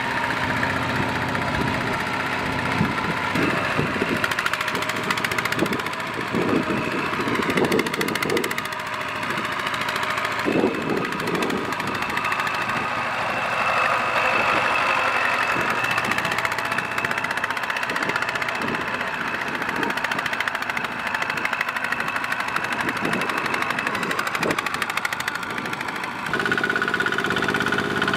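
Two-wheel walking tractor's single-cylinder diesel engine running under load with a rapid, steady putter of firing strokes as it drags a trailer of rice sacks through deep mud. The engine note shifts in pitch a couple of times.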